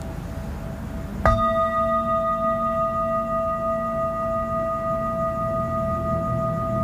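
Metal singing bowl struck once about a second in, then ringing on with a steady, clear tone made of several pitches at once.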